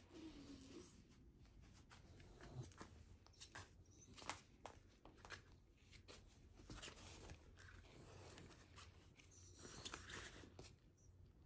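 Faint rustling and scattered soft clicks as a Shiba Inu shifts about on a vinyl cooling mat while a hand scratches its fur.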